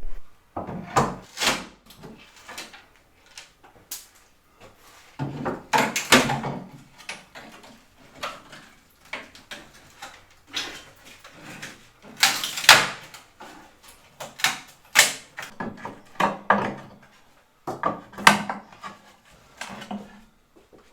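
Wood being pried and pulled off to expose what lies beneath: an irregular series of knocks, bangs and scraping sounds with short pauses between them. The loudest bang comes about two-thirds of the way through.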